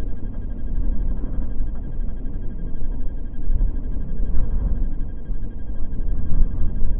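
Low, gusting rumble of wind buffeting the microphone of a camera riding along on a fat bike over a dirt road.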